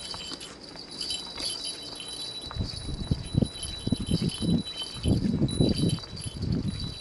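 High, light bell tinkling runs throughout, with footsteps thudding along the path from a little before halfway and loudest near the end.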